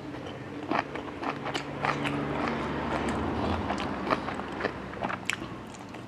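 Close-miked mouth chewing of grilled intestine salad: irregular wet clicks and smacks of chewy meat being chewed.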